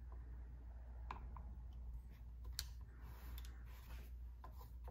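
Faint, scattered light clicks and taps of a flathead screwdriver and fingertips against a chainsaw's plastic housing as small wires are pressed into their grooves.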